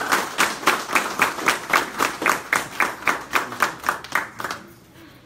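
A small group of people applauding, their claps coming at about four a second and dying away about four and a half seconds in.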